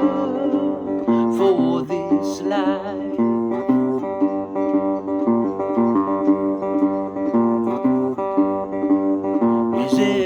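Acoustic guitar music playing a steady run of chords, with a wavering melody line over it about two seconds in.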